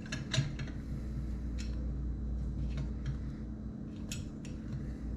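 Scattered light metallic clicks and taps of a wrench, bolt and valve-train parts being handled on a cylinder head, over a steady low hum.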